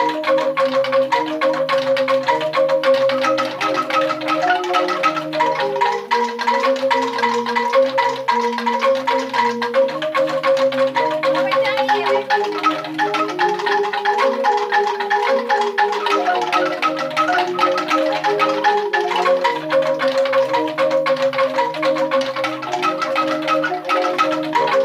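A newly made set of bamboo angklung playing on their own, several pitch layers of short ringing bamboo notes interlocking in a continuous repeating melody.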